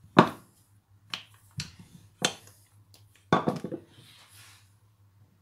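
Wooden rolling pin knocking against a wooden countertop while rolling out dough: single sharp knocks roughly every half second, then a quick cluster of clattering knocks a little over three seconds in as the pin is set down.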